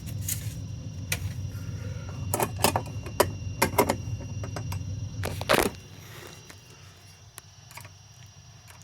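Hard plastic clicks and taps as the front plate of a fire alarm device is handled and fitted back on: about eight sharp clicks in the first five and a half seconds over a low rumble, after which it goes much quieter.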